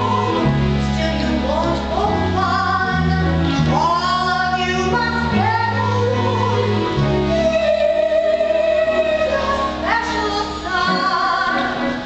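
A musical-theatre song: a solo voice sings over instrumental backing with a steady bass line, holding one long note a little past the middle.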